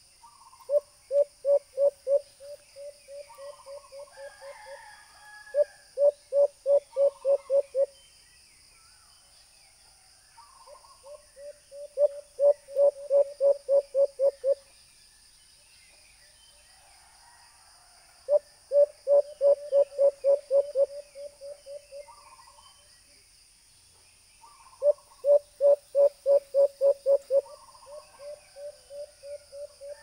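White-eared brown dove calling: five bouts of rapid hooting notes, about four a second, each bout lasting two to four seconds with short pauses between. Some bouts trail off into softer notes.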